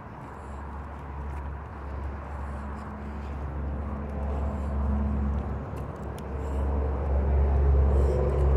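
Low rumble of a motor vehicle's engine nearby, with a steady hum, growing louder toward the end.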